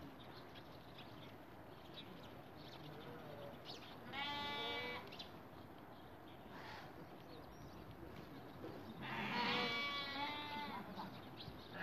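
Bleating livestock: one wavering call about four seconds in, a faint one shortly after, then a louder bout of several overlapping bleats about nine seconds in.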